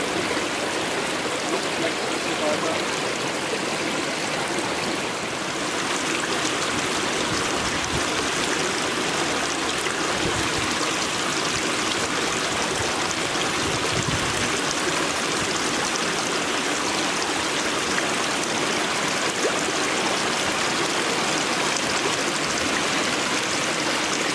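Steady rushing and splashing of water running into a pool, a constant noise with no distinct events, a little brighter in the upper range from about five seconds in.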